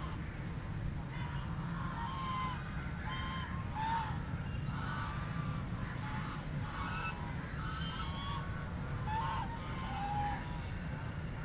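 A flock of domestic ducks quacking: many short calls overlapping one after another, over a steady low background rumble.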